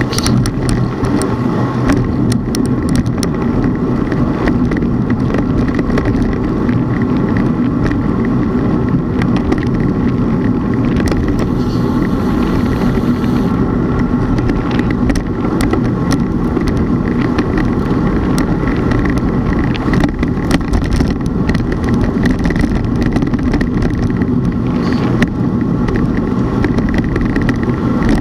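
Steady rumble of road and wind noise from travelling along a road, with a faint even drone and many small clicks and rattles.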